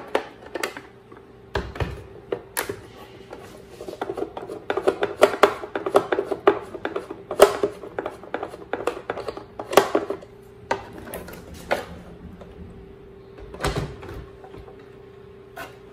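Clicks and clatters of a screwdriver working on the hard plastic housing of a Schneider NSX 630A moulded-case circuit breaker as a screw is undone and the unit is handled, with two dull thumps, one about two seconds in and one near the end. A faint steady hum runs underneath.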